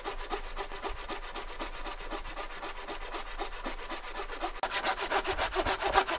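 Folding hand saw cutting through a dead hardwood trunk in quick, even back-and-forth strokes. The strokes get louder and closer about a second and a half before the end.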